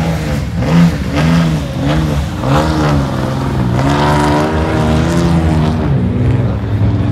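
Pickup truck engine revving up and down in quick pulses as it churns through a mud pit, then held high for about two seconds before dropping back.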